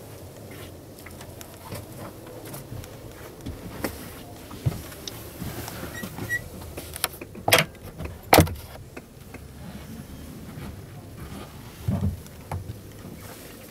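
Steady exhibition-hall background noise with scattered clicks and knocks. A little past the middle come two sharp knocks less than a second apart, the loudest sounds, and near the end a duller thump.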